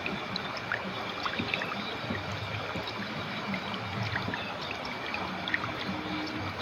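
Clear river water flowing steadily, a continuous rushing wash with small high plinks and gurgles scattered through it.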